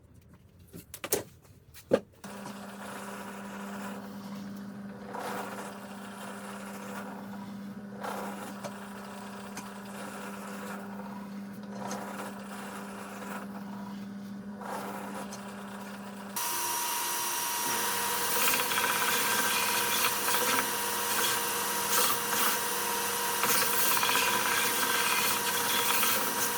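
Power tools working timber: after a few clicks, a motor runs steadily for about fourteen seconds. About sixteen seconds in, a louder, harsher tool takes over and runs until shortly before the end.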